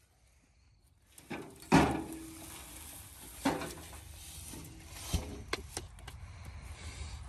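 Knocks and clunks of loose excavator parts, a yellow steel cover panel among them, being handled and set down on grass. There are several separate knocks, the loudest just under two seconds in, with rustling between them.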